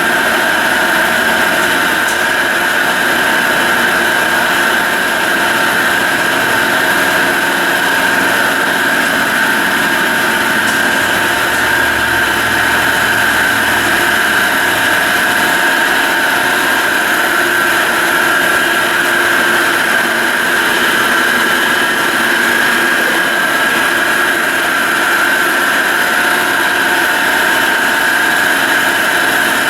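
Carlton radial arm drill press running under power: a steady mechanical whine of the motor and spindle gearing, with a high tone held throughout.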